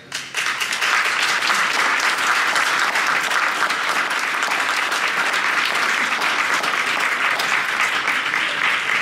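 Large audience applauding, starting suddenly and holding steady as a dense patter of many hands clapping.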